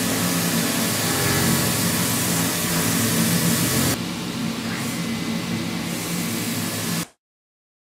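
Ball-nose milling cutter machining a 42CrMo4 chromoly steel block: a steady hiss of cutting over a low spindle hum. It drops in level and gets less bright about four seconds in, then cuts off abruptly near the end.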